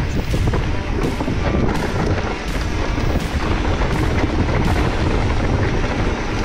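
Steady wind rumble on the camera microphone with a mountain bike's tyres rolling over a dirt trail and the bike rattling, broken by occasional sharp knocks as it hits bumps.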